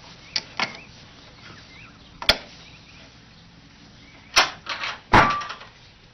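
Latch and door of a cat puzzle box clacking and knocking as a cat works its way out: a handful of sharp knocks and clatters, the loudest pair near the end.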